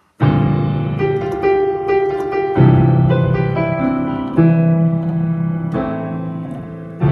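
Piano playing a slow run of sustained chords, a new chord struck about every one to two seconds and left to ring and fade.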